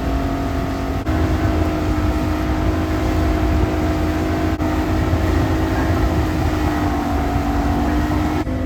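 Motorboat engine running steadily at speed, its pitch stepping up slightly about a second in, over a low wind-and-water rumble.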